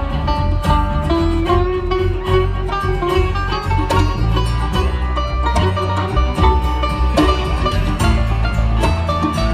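Live acoustic string band playing an instrumental break, with banjo, acoustic guitar and upright bass over a steady rhythm.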